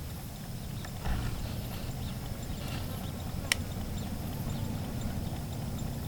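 Steady low rumble of wind buffeting the microphone in an open field, with a few faint clicks and one sharp click about three and a half seconds in.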